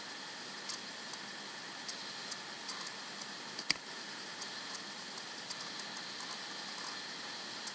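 Faint scattered clicks of a computer mouse and keyboard over a steady hiss, with one sharper click nearly four seconds in.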